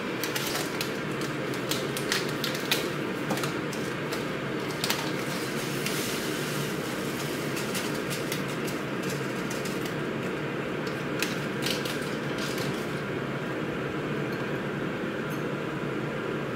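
Light handling clicks, rustles and knocks as a paper tea-bag sachet is torn open and the tea bag is put into a glass mug, over a steady background hum. The clicks are thick for the first dozen seconds and then thin out.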